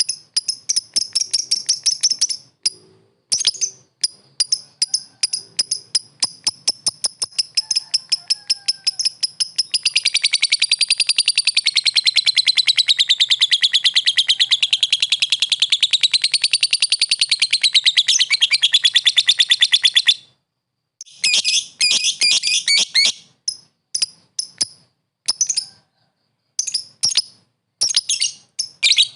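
Lovebird calling to a rival: rapid, shrill chirps in quick runs. About ten seconds in they merge into a continuous fast chatter that rises and falls in pitch for about ten seconds, then stop briefly and resume as short bursts of chirps.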